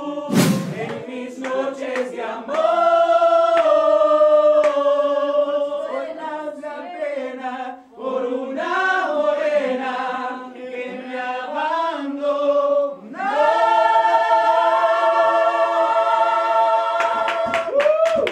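A group of men and women singing together without instruments, holding long notes in chorus. A sharp thump comes about half a second in, and hand claps start near the end.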